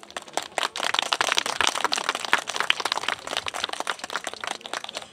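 Small crowd clapping, a quick, irregular patter of many hands that swells about a second in and then thins out.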